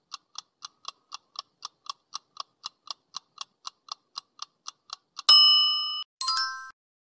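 Quiz countdown-timer sound effect: a steady clock ticking, about four ticks a second, for some five seconds. It is followed by a bright ringing chime, the loudest sound, and a second, shorter chime as the correct answer is revealed.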